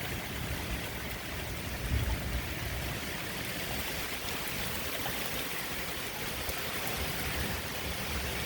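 Strong thunderstorm wind rushing in a steady hiss, with gusts buffeting the microphone in low rumbles, one stronger about two seconds in.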